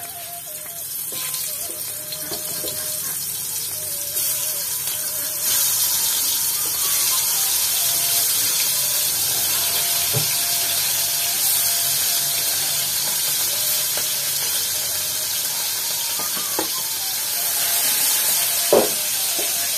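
Fish pieces sizzling as they shallow-fry in hot oil in a wok, the hiss growing louder as more pieces go in. A few utensil knocks, the sharpest near the end.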